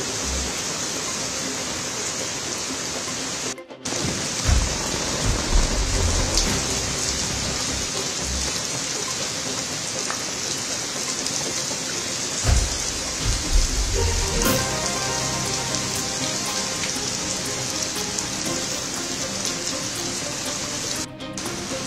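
Heavy cyclone rain pouring onto a road, a dense steady hiss, with a few low thumps of wind gusting against the microphone. The sound breaks off briefly about three and a half seconds in.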